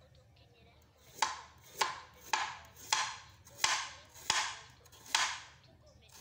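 Kitchen knife slicing a radish into thin rounds on a wooden cutting board: seven cuts, starting about a second in and coming roughly every half to three-quarters of a second, each a sharp tap of the blade on the board with a short fading swish after it.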